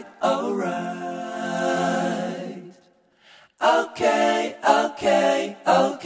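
A voice singing a melody, with a long held note, a short break about three seconds in, then further short sung phrases.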